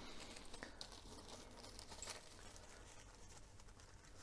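Near silence, with a few faint light clicks and rustles from small parts and packaging being handled.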